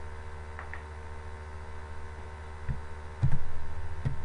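Steady electrical mains hum on the recording, with a few soft clicks and one louder knock a little past three seconds in.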